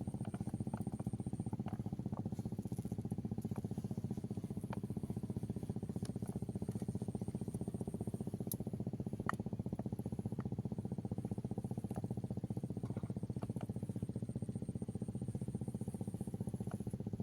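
Small engine running steadily at a constant speed, with a few faint clicks over it.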